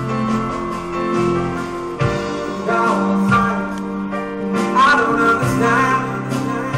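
Live music: a singer at a grand piano sings over held piano chords. The voice comes in about two seconds in, after a short piano passage.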